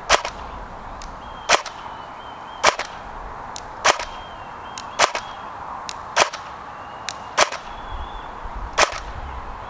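L86 LSW airsoft electric gun firing 0.28 g BBs in single shots, eight sharp reports at a steady pace of about one every second and a bit.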